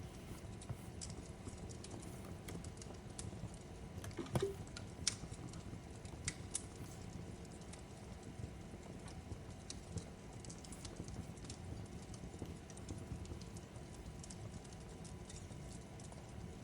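Fireplace crackling: irregular sharp pops and snaps from burning wood over a soft low rumble of the fire, with a louder pop a little over four seconds in and another about a second later.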